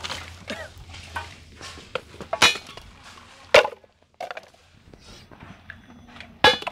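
Hard, dry horns knocking and clattering against each other as they are handled, with sharp knocks about two and a half and three and a half seconds in and again near the end.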